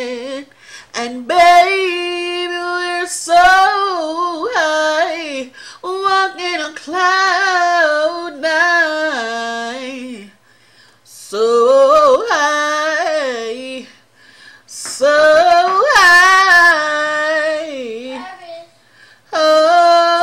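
A singer with a head cold sings unaccompanied and close to the microphone, holding long, wavering notes in several phrases broken by short pauses.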